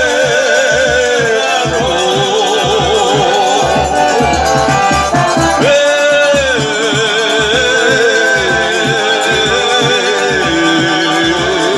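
Forró music playing loud, a wavering melody line over a steady low drum beat with a shaker.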